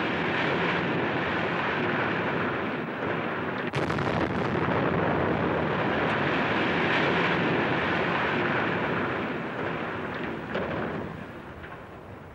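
Demolition of a ruined railway station building: a steady rumble of collapsing masonry and rubble with a brief break about four seconds in, fading toward the end.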